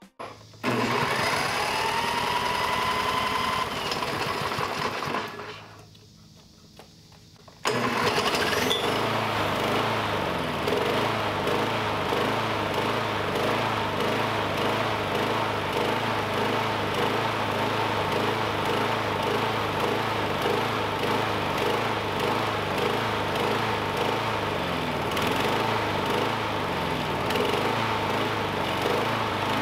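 Push mower's small gasoline engine running on diesel fuel. It comes in loud about half a second in with a rising whine, drops away from about five to eight seconds, then runs steadily with an even beat. It keeps running only with continuous pumping of the primer bulb.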